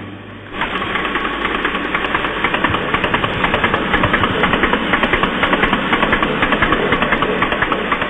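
Ampex TM2 magnetic tape drives of a LEO III computer clattering: a fast, even run of mechanical clicks that starts sharply about half a second in, after a moment of the computer room's steady hum.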